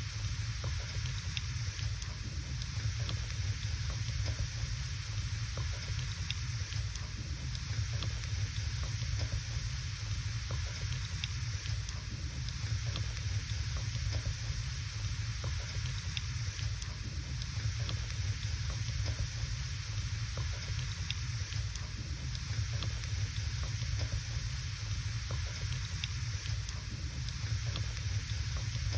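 Wood fire burning in a fireplace: a steady hiss and low rumble with scattered faint crackles and pops.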